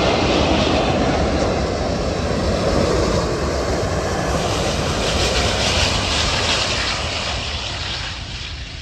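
British Airways Airbus A380 passing close by with its four jet engines running loud, a dense rushing jet noise that fades away near the end.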